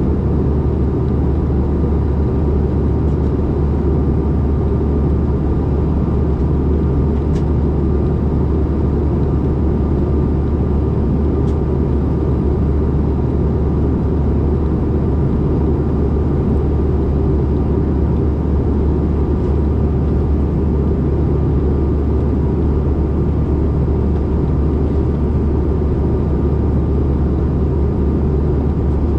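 Steady cabin noise inside a CRJ-550 regional jet in flight: a deep, even rumble of airflow and its rear-mounted GE CF34 turbofans, with a faint steady whine above it.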